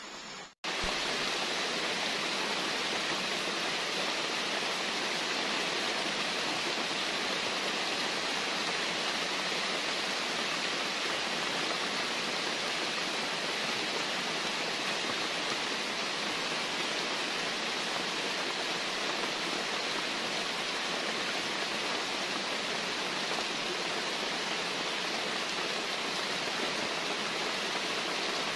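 Steady rush of heavy tropical rain on rainforest foliage together with a swollen, flooding creek running. The sound cuts in abruptly under a second in and then holds even.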